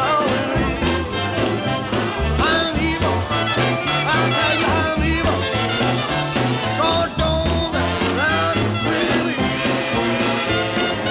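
A swing-style band with brass playing an instrumental passage over a walking bass line, with bending, sliding horn phrases.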